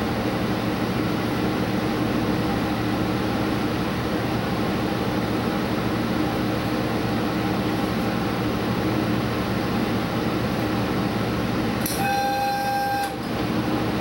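Steady running noise of an express train, heard from inside its front observation car. Near the end a horn sounds once for about a second.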